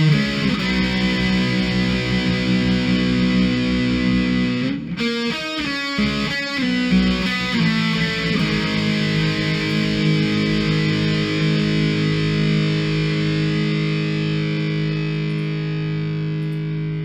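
Intro music: distorted electric guitar playing held chords, with a choppier passage a few seconds in, then one long sustained chord.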